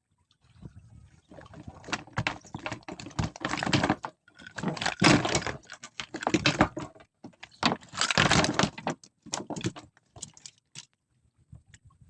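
Irregular bursts of clicking, rustling and knocking with short pauses, loudest about five seconds and eight seconds in.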